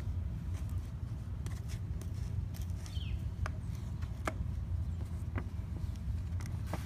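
Light clicks and taps of a foil-covered cardboard lid being handled and set on a table, and photo paper being peeled off it, over a steady low rumble.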